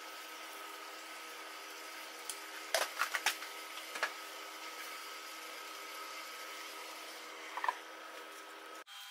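Pork rib tips cooking in a pan: a steady sizzling hiss over a low steady hum, with a few light clicks and taps about three seconds in and again near the end.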